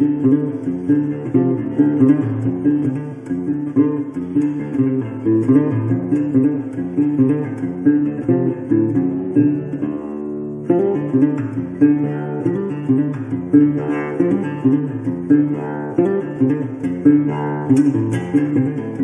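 Background music: acoustic guitar played in a quick, steady rhythm, briefly thinning to a held note about ten seconds in before picking up again.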